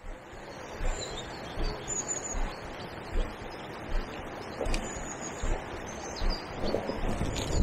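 Small birds chirping repeatedly in short high calls over a steady rush of fast-flowing river water, with irregular low bumps underneath.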